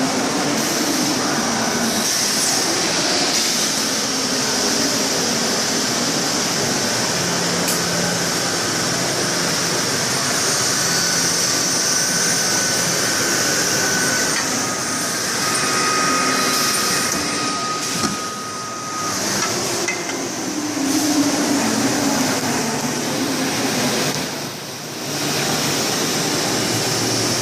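Swiss-type CNC lathe running while it machines brass parts: a dense, steady machine noise with brief whining tones in the middle and two short dips in loudness near the end.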